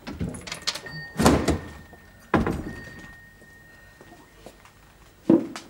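An ornate antique mechanical cash register being worked: two heavy clunks about a second apart, each followed by a short, high, steady bell ring. A single thud comes near the end.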